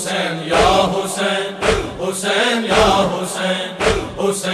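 A crowd of male mourners chanting together in unison, with a regular beat of matam (hands striking chests) a little under twice a second under the chant, as the group response between verses of a noha.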